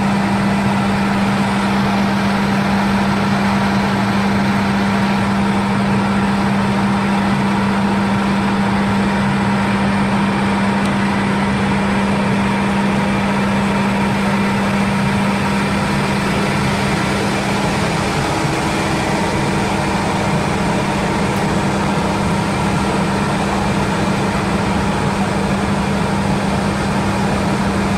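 Steady, loud machinery hum with a strong low drone and fainter steady tones above it, unchanging throughout: industrial equipment of a biomass gasifier plant running continuously.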